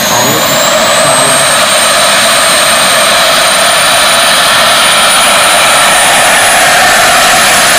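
Jet engines of a large radio-controlled Airbus A380 model running at high power on the takeoff roll. A high whine rises over the first second, then holds steady over a loud, even noise.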